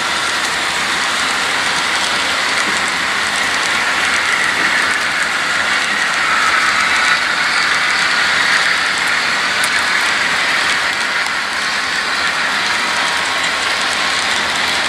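Model freight cars rolling past on metal track across a trestle, a steady rolling whir of wheels on rail that grows a little louder midway.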